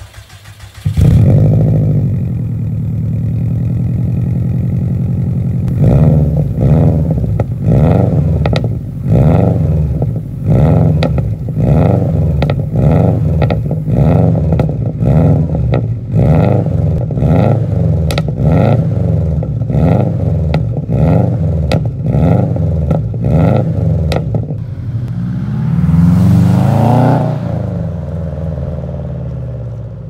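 Rebuilt Subaru EJ207 turbo flat-four through a 3-inch Blitz exhaust, heard from behind the tailpipe. It fires up about a second in and idles, then is blipped again and again, about one rev a second, with one longer rev near the end. It has the typical Subaru boxer burble that comes from the unequal-length exhaust manifold.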